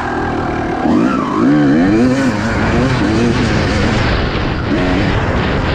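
Motocross bike engine heard from on board, revving up and falling back again and again as the rider accelerates and eases off along a dirt track.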